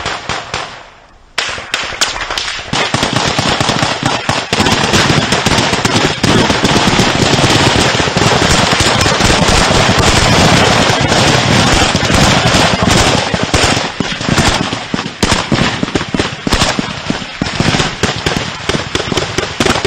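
Heavy gunfire in a firefight: after a short lull about a second in, rifle shots start and quickly thicken into near-continuous automatic fire, very loud and close.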